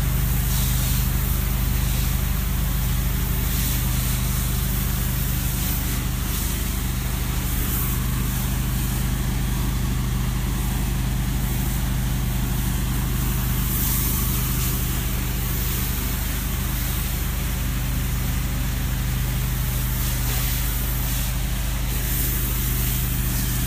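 Engine of a trailer-mounted washing rig running steadily with a low, even hum, under the constant hiss of a hose wand spraying bleach and soap solution onto concrete to kill mold and mildew; the hiss brightens now and then as the spray shifts.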